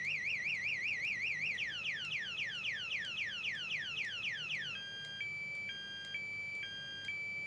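Motorcycle anti-theft alarm siren going off while armed. It cycles through its tones: a fast warble, then rapid falling sweeps about five or six a second from about 1.5 s in, then a high-low two-tone from about 5 s in.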